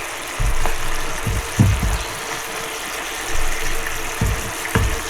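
Summer porcini mushrooms sizzling in a pan of olive oil and pasta water, a steady frying hiss, broken by several irregular low thumps.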